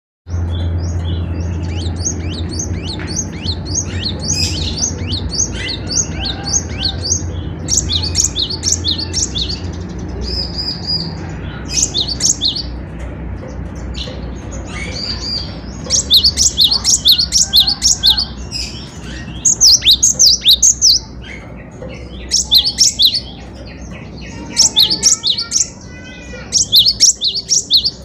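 Cinereous tit (gelatik batu) singing steadily: repeated phrases of rapid, short high notes, louder and more spaced from about halfway. A low steady hum lies under the first half.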